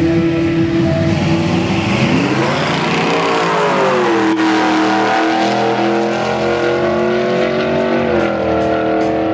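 Two drag cars, a '63 Chevy Nova and an '87 Pontiac Fiero, launching off the line and running down the strip. The engine note holds steady at first, rises steeply about two seconds in as they pull away, then falls back and holds as they accelerate away.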